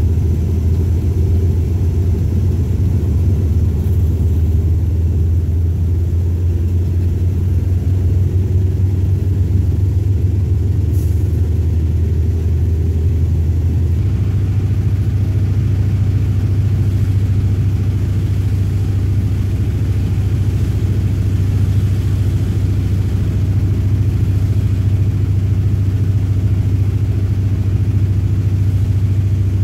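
Diesel train engine running steadily under load, heard from inside the driver's cab as a loud low drone. About halfway through the drone steps up slightly in pitch.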